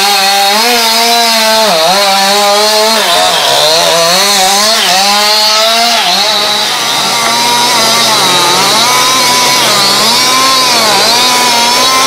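Two-stroke chainsaw running at high revs while cutting into the base of a large tree trunk, its engine pitch dipping each time it bogs in the wood. From about halfway through, the pitch rises and falls in a steady rhythm, a little faster than once a second, as the saw works back and forth in the cut.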